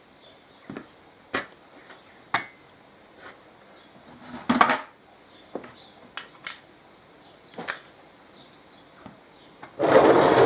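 Scattered clicks and knocks of metal tools and parts being handled, with a clattering stretch about halfway through. Near the end comes about a second of loud rushing air, a compressed-air blow gun on an air hose being triggered.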